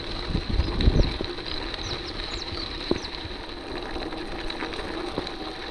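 Mountain bike rolling over a dirt road, tyres crunching and the bike knocking and rattling over bumps, with a few short bird chirps between about one and three seconds in.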